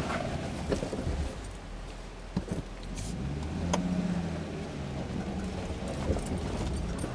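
A 4x4's engine running low as it crawls slowly over rocks and dirt, with a few sharp knocks and clicks from the tyres and suspension. The engine note swells briefly about four seconds in.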